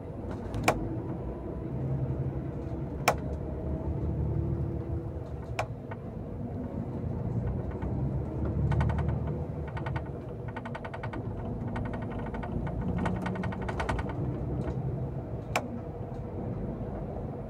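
Vehicle driving, heard from inside: a steady engine and road rumble, with three sharp clicks spread through it and stretches of rapid rattling in the second half.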